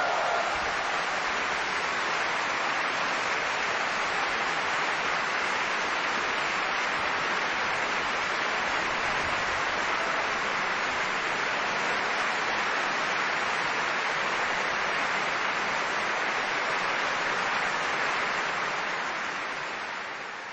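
Audience applauding at the end of a live orchestral recording. The sound is a steady, even clapping that fades out near the end.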